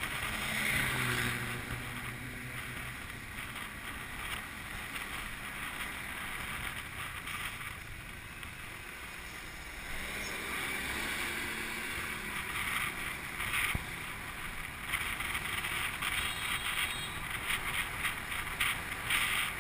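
Motorcycle taxi riding through city traffic: its engine running under way and the wind rushing past the microphone. There is a steady noise of traffic alongside, growing louder about halfway through as the bike passes close alongside a bus.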